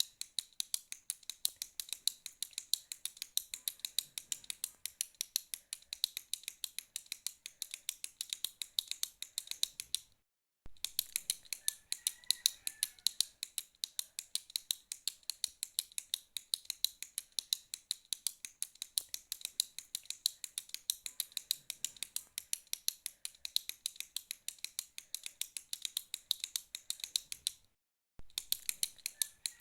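A retractable pen clicked over and over in a quick, steady run of sharp clicks, several a second. The clicking breaks off briefly twice.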